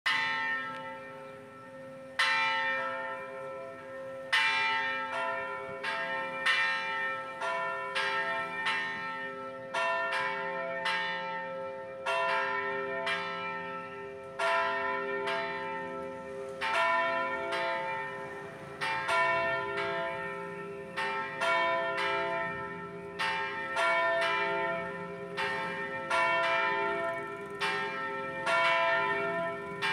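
Church bells ringing in a continuous peal: repeated strikes about one or two a second, each ringing on, over the steady low hum of the bells.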